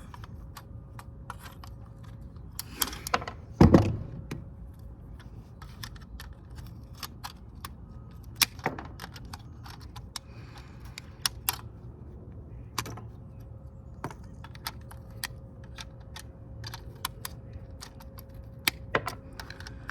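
Wire cutters snipping the leads of copper-tabbed MOSFETs off a power circuit board: a string of sharp metallic clicks at an uneven pace, with one heavier knock about four seconds in.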